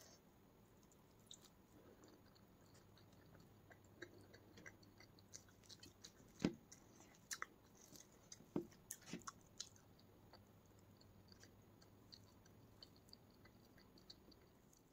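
Faint, close-miked chewing with soft wet mouth clicks and smacks while eating rice and curry by hand, with fingers working the rice on the plate. Scattered sharp clicks throughout, a couple of them louder in the middle.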